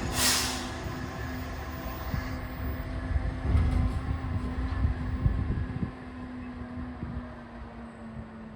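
Green waste collection truck running, a steady low engine hum and rumble, with a short burst of hiss just after the start. It grows fainter over the last few seconds.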